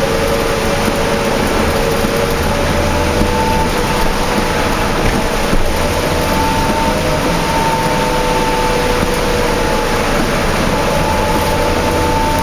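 New Flyer D40LF transit bus under way, its Cummins ISL diesel and ZF automatic transmission running with a steady low rumble and a whine that drifts slowly in pitch, over constant road and heavy-rain noise.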